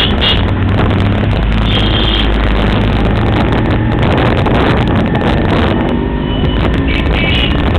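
Yamaha 100 cc motorcycle engine running steadily while riding, with wind on the microphone. A few short high beeps sound near the start, about two seconds in, and near the end.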